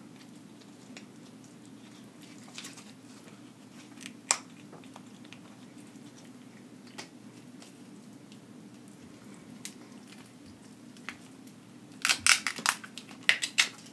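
King crab leg shell cracking and snapping as it is broken apart by hand: a quick run of sharp cracks near the end, with a few single clicks from handling the shell before it, over a low steady hum.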